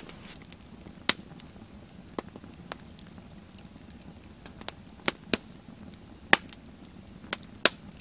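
Wood campfire crackling: irregular sharp pops and snaps of burning wood, a few of them much louder than the rest.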